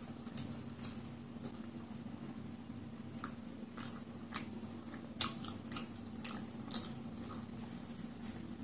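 Eating sounds up close: fingers picking up fried chicken lollipop and a bite into it, heard as about ten scattered short clicks and smacks of chewing and mouth noise over a faint steady hum.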